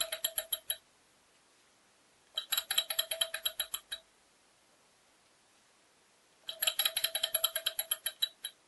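Small Stirling hot-air engine built on an old computer hard drive, turned over to start: three short runs of rapid metallic clicking, about ten a second, each dying away after a second or two. The engine fails to keep running.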